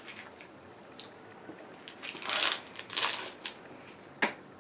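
Small plastic dipping-sauce cup having its snap-on lid pried off by hand: scattered light plastic clicks, two short crinkling rustles about two and three seconds in, and a sharp click near the end.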